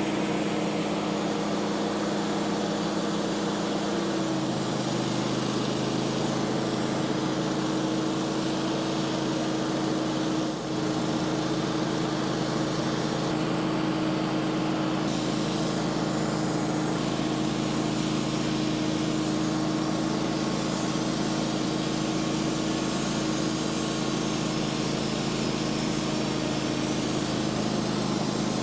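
Wood-Mizer portable bandsaw mill's engine running steadily while the band blade saws a board from a hickory log. The engine note drops about four seconds in and comes back up near the end.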